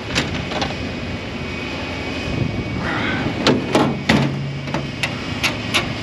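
Sharp metallic clanks and knocks as a stainless tank trailer's manhole lid and its hinged dome cover are closed by hand, several separate strikes with a quick run of three in the middle, over a steady low rumble.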